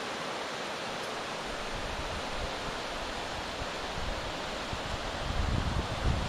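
Steady rushing of a rocky river's rapids, heard from high above on a bluff. Near the end, gusts of wind buffet the microphone with low rumbles.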